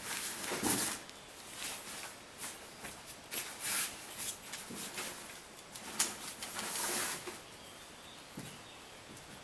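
Newborn Jack Russell Terrier puppies suckling and shifting against their nursing mother: soft, irregular sucking and rustling noises that come in short spells a few times.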